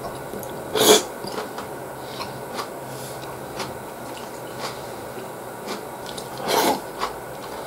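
Close-up eating sounds: a person chewing food, with many small clicks and ticks, and two louder short noisy sounds about a second in and near the end.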